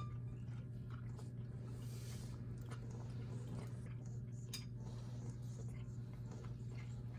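A cat chewing and licking food from a dish, small soft wet clicks with one sharper clink about four and a half seconds in; the cat has stomatitis and missing teeth.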